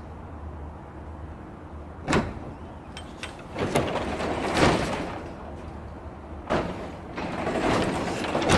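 Sectional garage door being tested after its emergency release cable is pulled: a sharp clunk about two seconds in as the release lets go, then the door rumbling and rattling on its rollers in two pushes as it is lifted by hand, loudest near the end.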